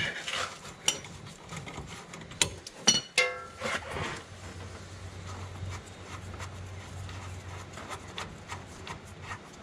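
Rubbing and scraping with scattered sharp clicks and a few short squeaks, from a socket and ratchet being worked on a Corvette differential's fill plug. The clicks are strongest in the first three seconds, with a faint low hum in the middle.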